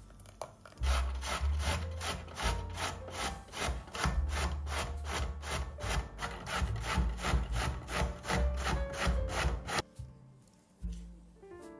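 Steady, regular scraping strokes of a kitchen hand tool working food, about three a second, stopping abruptly near the end.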